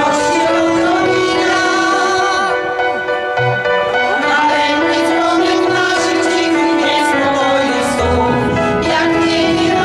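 Music with long held melodic notes and occasional low bass notes.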